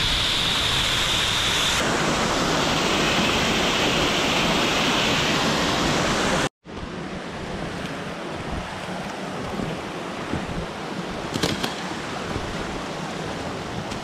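Rushing water of a partly frozen creek running over ice and rocks, a steady loud hiss. About six and a half seconds in it cuts out abruptly and comes back much quieter, with a few light knocks and scuffs of footsteps on rock and leaves.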